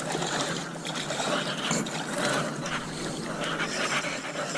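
Fishing reel ratcheting as a hooked bass pulls against the line.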